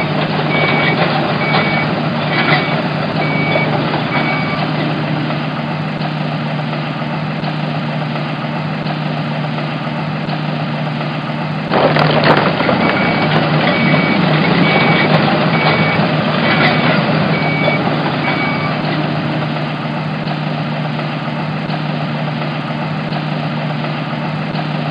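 Cartoon game sound effects of a construction vehicle: a steady engine hum, with a reversing beeper sounding in two runs, near the start and again from about thirteen to nineteen seconds, and a sudden louder burst of noise about twelve seconds in.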